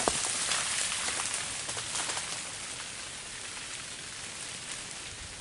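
Freezing rain falling on ice-glazed branches and leaf litter: a steady hiss full of fine ticks, with a few sharper clicks near the start.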